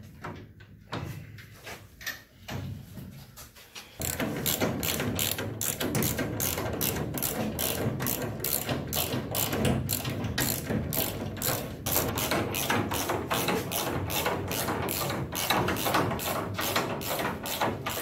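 Hand socket ratchet clicking as it runs a bolt up into the car's underbody. It starts about four seconds in and goes in quick, even strokes of about three to four a second.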